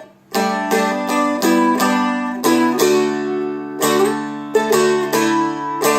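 Seagull Merlin, a small four-string fretted dulcimer, flatpicked: a run of melody notes picked on the D string over steadily ringing drone strings. The first note comes after a brief pause.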